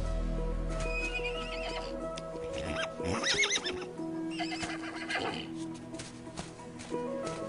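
A horse whinnying over background music: one loud, high, wavering whinny about three seconds in, with fainter calls before and after it.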